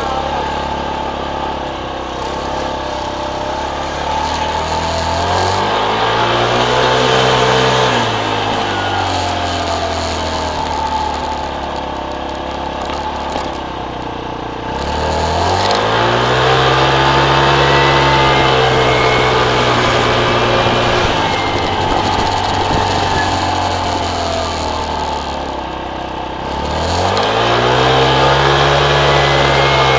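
Motorcycle engine running under way, rising in pitch as it accelerates about five seconds in, again around fifteen seconds and near the end, and holding a steady pitch between the rises.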